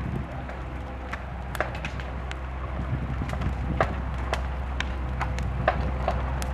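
Timber bonfire crackling, with irregular sharp pops and cracks of burning wood, over the steady low drone of a mini excavator's engine.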